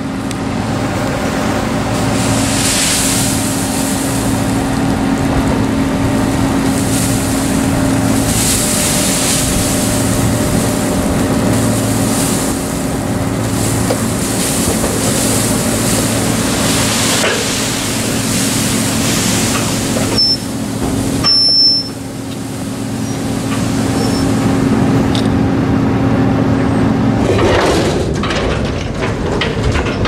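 Tractor diesel engines running steadily as a load of chopped maize is tipped off at a silage clamp, with surges of noise over a held engine note. A few short high beeps about two-thirds of the way through.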